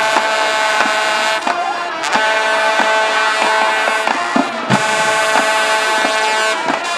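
Marching band playing: brass holding three long, loud chords of about two seconds each, with short breaks and drum hits between them.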